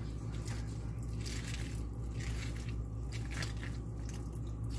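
Wooden spoon stirring chopped raw cabbage through soup in a full pot: wet squishing, with many short crisp sounds from the leaves, over a steady low hum.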